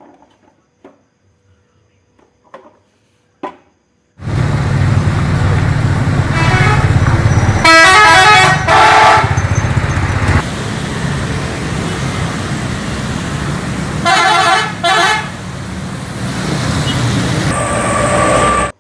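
A bus's multi-tone musical horn sounds over loud engine and road noise. A run of stepped notes plays about six to nine seconds in, a shorter run comes around fourteen seconds, and a single held tone sounds near the end. The first four seconds are nearly silent.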